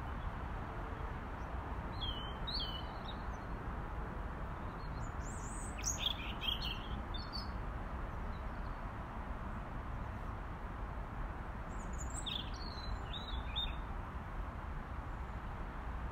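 Robin singing: three short phrases of thin, high, quickly changing notes, about two seconds in, around six seconds in and near twelve seconds in, over steady background noise.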